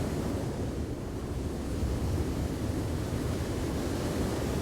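Storm wind blowing hard across the microphone: a steady, low rushing rumble with no pauses.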